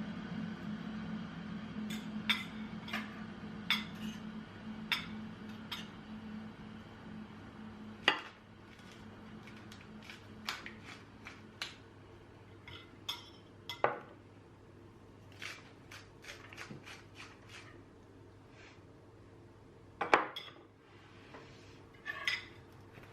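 Dishes and cutlery clinking and tapping in a series of short, sharp knocks and clinks, some louder than others. A low steady hum runs under the first several seconds and fades out about eight seconds in.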